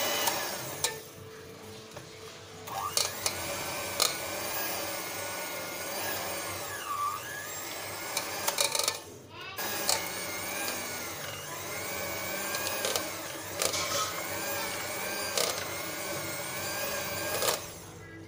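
Electric hand mixer beating a hard frozen ice cream base in a steel pot. Its motor whine wavers in pitch as the beaters labour through the frozen mass, with occasional sharp knocks. It dips about a second in, drops out briefly around nine seconds, and falls away near the end.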